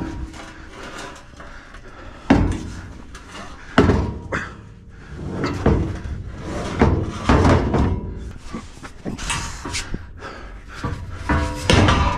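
Heavy steel post knocking and scraping against a truck's steel bed as it is wrestled into place. There are a series of irregular thuds, with the sharpest knocks about two seconds in and again near four seconds.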